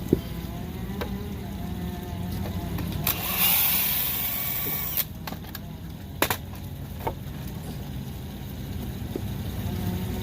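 Steady low engine-like hum throughout. A loud hiss lasts about two seconds starting about three seconds in, and a few sharp knocks land near the start and around the middle.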